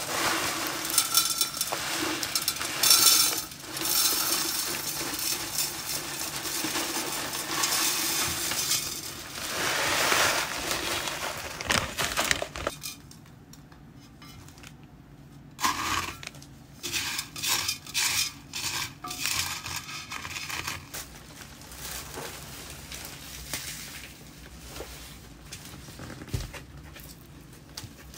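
Washed masato grit poured from a plastic bag onto a clay saucer and into an unglazed terracotta pot: a dense gritty rattle for about the first twelve seconds, then scattered small clinks and short rattles as the grit is handled.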